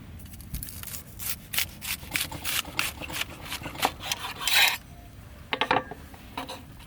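A quick run of short rasping scrapes, about three to four a second, ending in a longer stroke; after a short pause a few more scrapes follow.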